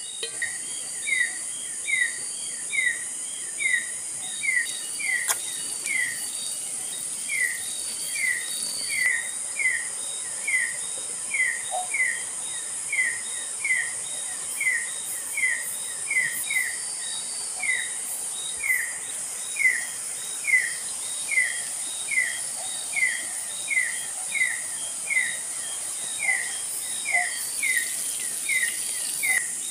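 A bird repeating a short, down-slurred call about one and a half times a second, over a steady high drone of insects.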